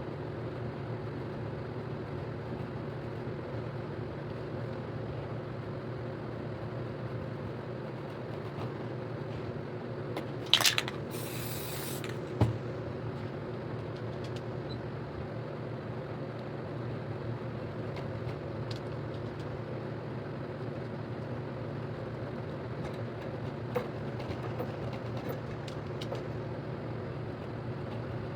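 A steady low hum runs throughout. About ten seconds in, an aerosol spray paint can gives a few clicks and then hisses for about a second and a half, followed by a single sharp knock.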